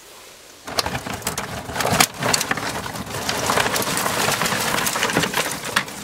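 Dry kindling twigs rustling and clicking as they are handled in a pile: a dense crackle of small snaps and scrapes that starts under a second in.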